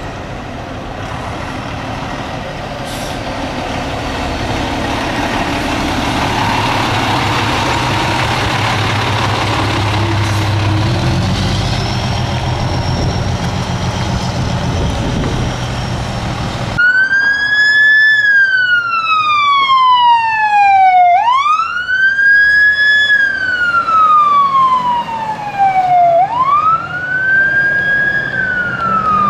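A fire engine's diesel engine and tyres passing close by, growing louder. Then, after a sudden cut, a fire apparatus siren wails in slow sweeps, each rising quickly and falling more slowly, about every five seconds.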